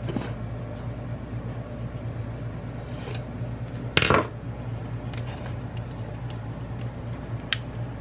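Small clicks and handling noises from a plastic microwave door-switch holder and multimeter test leads being moved about on a countertop, with one louder clack about four seconds in, over a steady low hum.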